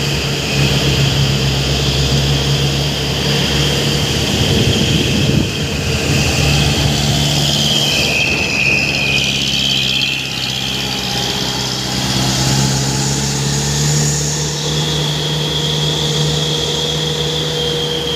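Truck engine idling steadily, with a high steady tone above it that dips in pitch briefly about halfway through.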